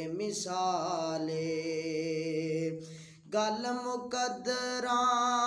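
A man singing a Punjabi naat, drawing out long held notes, over a steady low drone that steps up in pitch about three seconds in.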